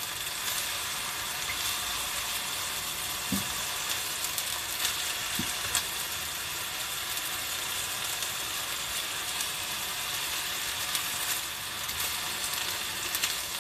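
Pork, garland chrysanthemum and bean sprouts sizzling in a hot frying pan as they are stir-fried and turned over, a steady hiss with a few light clicks.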